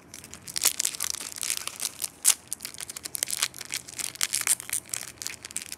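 Foil wrapper of a Pokémon Vivid Voltage booster pack crinkling and crackling in the hands as it is worked open, in a dense run of irregular crackles.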